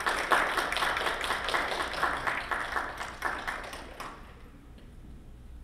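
Audience applauding: a roomful of people clapping, which dies away about four seconds in.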